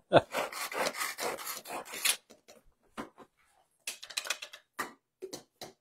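Scraping and rubbing of kitchen utensils against plastic containers for about two seconds, then scattered light clicks and taps as containers and spoons are handled.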